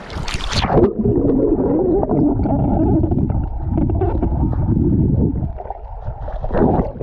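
Wind buffeting the microphone, a loud low rumble with a wavering quality, opening with a brief hissing rush in the first second.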